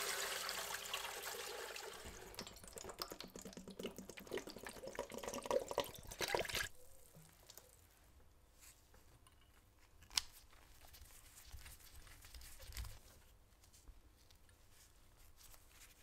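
Nickel plating solution poured from a plastic bottle into a plastic tub over copper parts, splashing and getting louder toward the end of the pour, which stops abruptly less than halfway through. Afterwards only faint handling noise with a single sharp tap.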